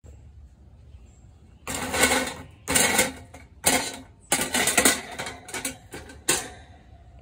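Wire cooking grate of a portable charcoal grill set down over the briquettes and shifted into place: metal rattling and scraping in about six short, loud bursts, starting a couple of seconds in.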